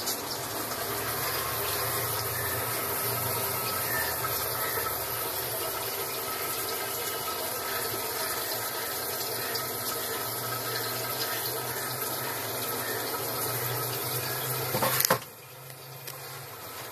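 Water pouring and splashing into an aquaponics fish tank, a steady rush. About fifteen seconds in there is a knock, and the rush drops to a quieter level.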